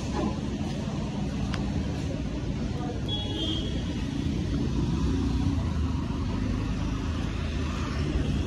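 Road traffic on a city street: a steady low rumble of passing vehicles, with a brief high squeak about three seconds in.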